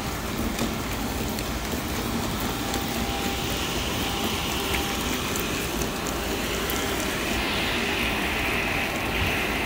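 Steady bus-terminal noise from idling city buses, with a high hiss that grows louder over the second half.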